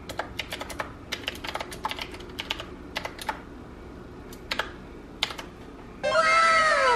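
Qwerkywriter S typewriter-style mechanical keyboard being typed on: quick, irregular clacking keystrokes that stop a little after five seconds. About six seconds in, a woman's voice rises loudly over the quiet.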